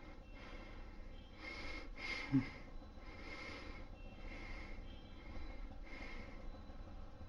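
A person breathing audibly and sniffing, a breath roughly every second, with one short low snort or grunt about two seconds in.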